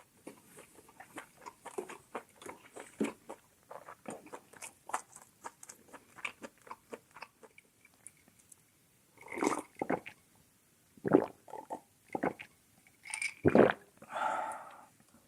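Close-miked chewing of food, a dense patter of small wet clicks through the first half, then a handful of louder, longer mouth sounds in the second half.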